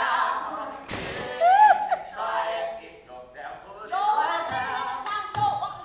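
Several voices singing a funk number a cappella in harmony, with a swooping vocal slide about a second and a half in. A few sharp percussive hits fall among the singing.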